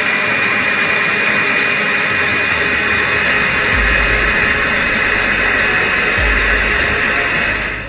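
Countertop blender running at high speed, puréeing strawberries, apple and flat peach with water into a smoothie: a steady whirring with a constant high whine that cuts off just before the end.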